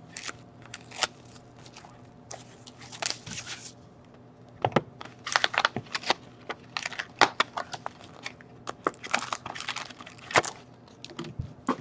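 Cardboard box of 2016/17 SPx hockey cards being opened by hand and the foil-wrapped card packs inside crinkling as they are handled, in short irregular crackles and rustles.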